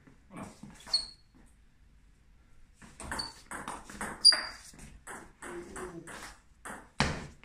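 Table tennis ball being played in a rally, clicking sharply off the bats and the table in quick succession, with a few single taps of the ball in the first second. The sharpest hit comes about four seconds in.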